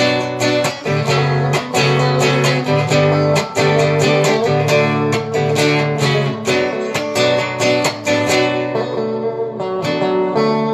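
Instrumental ending of a song: guitar strumming over a steady beat, with no singing.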